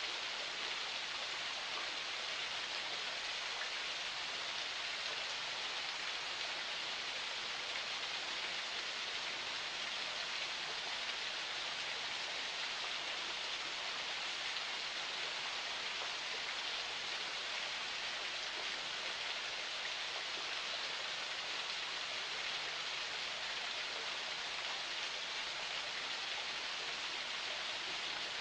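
Forest spring flowing: a steady, even hiss of running water that never breaks or changes.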